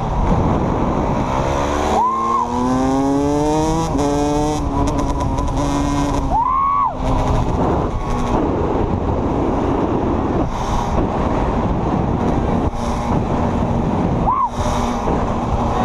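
Sport quad engines running along the road, a Yamaha YFZ450 among them, with the revs climbing a couple of seconds in and several quick throttle blips, under a steady rush of wind.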